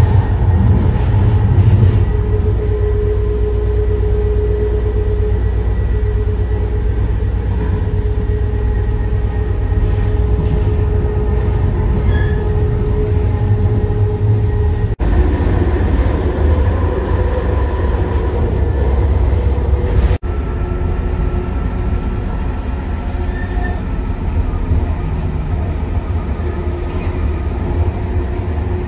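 Steady low rumble of a moving vehicle heard from inside, with a faint steady hum over it.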